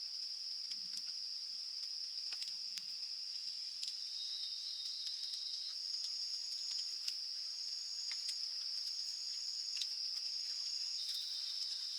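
Rainforest insects: a steady, high-pitched drone that never lets up, with shorter trills from other insects at slightly different pitches starting and stopping over it. Scattered small clicks are heard now and then.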